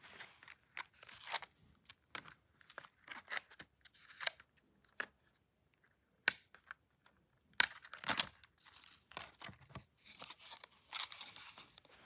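Stiff clear plastic clamshell tray of a RAM kit being handled and pried open: irregular crackling and clicking of the plastic, with two sharp snaps past the middle and a denser crinkling near the end.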